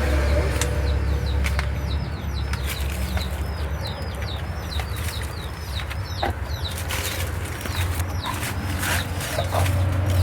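Small birds chirping over and over in quick, short falling notes, over a steady low hum, with a few scattered sharp clicks.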